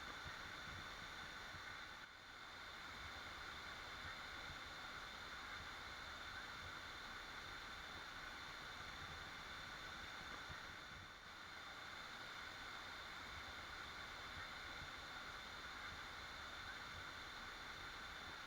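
Faint, steady rushing of a waterfall, with a thin steady high tone over the water noise. The level dips briefly twice.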